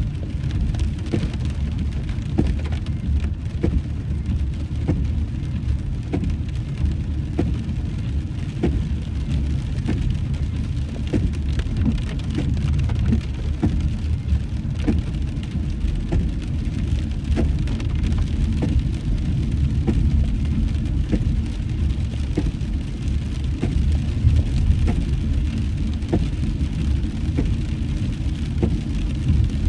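Rain on a moving car, heard from inside the cabin: a steady low road-and-engine rumble with scattered raindrop ticks over it.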